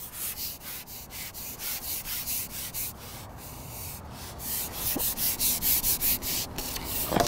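A carbon fishing pole being pulled back hand over hand: a run of short rasping rubs, several a second, growing louder from about four and a half seconds in.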